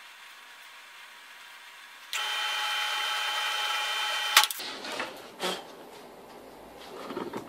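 Drill press running with a steady whine for about two seconds, boring holes in a wooden bowl blank, then cutting off sharply. A few knocks and clatter follow.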